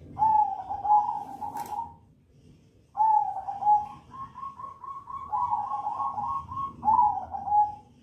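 Crossbred zebra dove (perkutut) cooing in a cage: one short phrase, then after about a second's pause a longer phrase that runs into a quick string of repeated coo notes. A single sharp click about a second and a half in.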